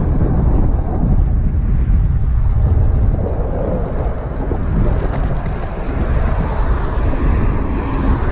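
Wind buffeting a helmet-mounted camera's microphone while riding an electric bike, a loud, steady low rumble of rushing air.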